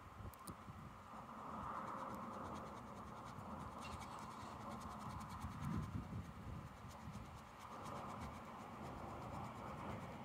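Scratchy rubbing as fingers press and work a vinyl window decal onto the windshield glass, swelling and fading in waves.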